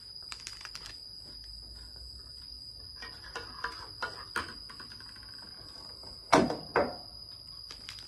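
Plastic wrapper of a cheese snack being handled and peeled back: scattered small crinkles and clicks, with two louder sharp sounds about six and a half seconds in.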